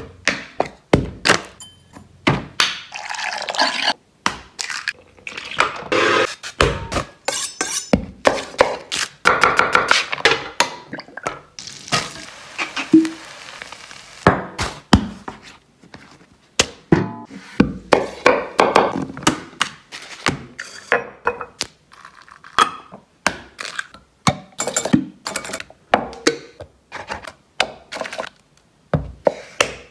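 Kitchen cooking sounds in quick succession: food sizzling in a frying pan, a whisk working in a glass bowl, and many sharp knocks and clicks of utensils and pans.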